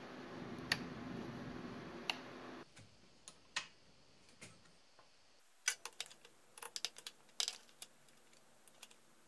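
Scattered light clicks and taps of a hand tool on a small-engine carburetor as the float bowl is worked loose, over a faint steady hum in the first few seconds. The clicks come in an irregular cluster near the end.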